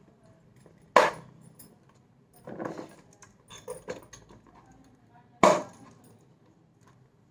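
Glass spice jars being set into a spice rack's holders: two sharp clinks, about a second in and again about five and a half seconds in, with softer clatter of glass jars between.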